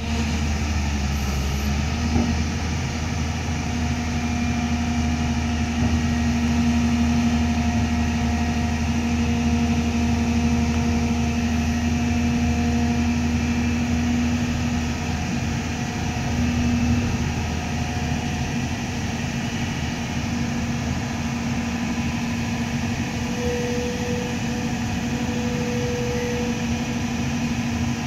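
Hyundai 350LC long-reach excavator's diesel engine running steadily while its hydraulics work the boom to lift a large pipe, with a steady whine over the engine drone.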